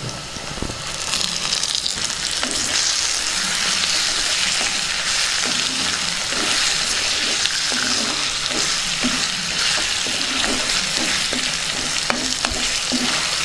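Raw chicken pieces sizzling as they fry in hot oil with onions and chillies in a clay pot, the hiss swelling over the first couple of seconds after they go in. A spatula stirs through them, with light scrapes and knocks against the pot.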